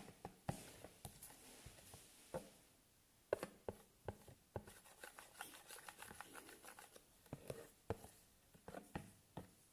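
Faint, irregular clicks and taps of a stirrer against a plastic container while coloured slime glue is mixed.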